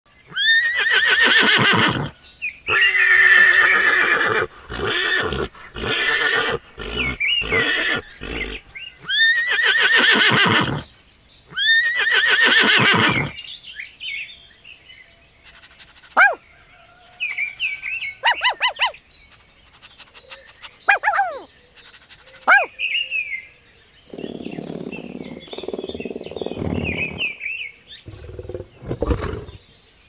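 Horses whinnying several times, loud calls that fall in pitch, through the first half. After that, birds chirping with a few short high yelps from a small dog, and near the end a low rough rumbling.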